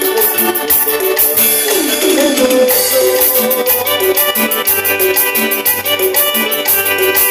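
Live band playing upbeat Latin dance music: electric bass, a sustained melody line and a steady quick high percussion beat, with a falling glide about two seconds in.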